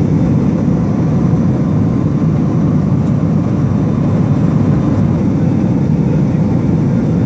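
Fixed-wing surveillance aircraft's engines heard from inside the cabin as a steady, even drone that does not change.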